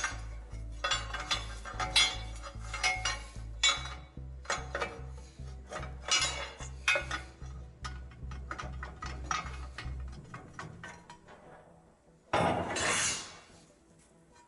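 Metal engine parts clinking and knocking against each other as they are handled, many sharp clinks in quick succession, with a louder noisy rush of about a second near the end. A low pulsing music beat runs under the clinks for the first two thirds.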